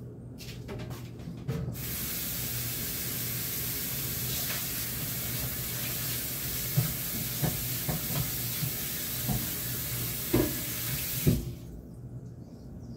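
Kitchen tap running into the sink while a white cutting board is rinsed, with a few knocks of the board against the sink. The water comes on about two seconds in and is shut off about two seconds before the end.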